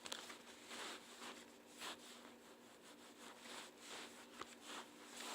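Faint, soft rubbing and rustling strokes, a few a second, as a wet phone is wiped dry by hand.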